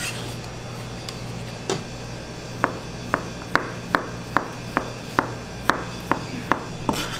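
Chef's knife chopping ham on a cutting board: about a dozen sharp knocks of the blade on the board, two or three a second, starting a couple of seconds in.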